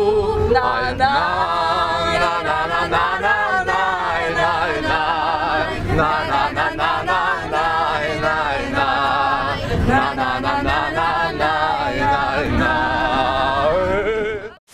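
A group of voices singing a Ukrainian song together without accompaniment, a bit ragged and unpolished, breaking off abruptly near the end.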